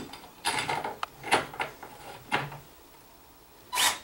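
A few short clicks and knocks from handling a cordless drill and its screw against the ceiling, then near the end the drill's motor gives a short whirring burst as it starts driving a blind bracket screw with a nut driver bit.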